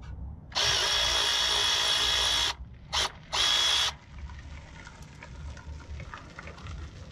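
Cordless electric ratchet spinning a 16 mm bolt, whirring in a run of about two seconds, then a brief blip and a second short run, with a steady high whine. A few light metallic clicks follow.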